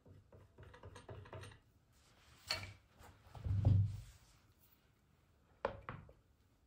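Metal and wooden parts of a Gevarm .22 LR carbine clicking and clunking as it is taken apart by hand: light rattles early on, a sharp metallic click about two and a half seconds in, a dull thump a second later, and two quick clicks near the end.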